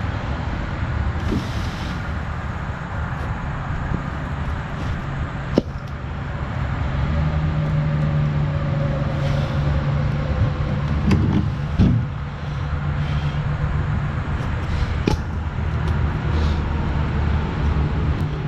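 John Deere Gator utility vehicle's engine running under way, its pitch stepping up about seven seconds in and holding steady, with scattered knocks and clunks from the hauled load and trailer.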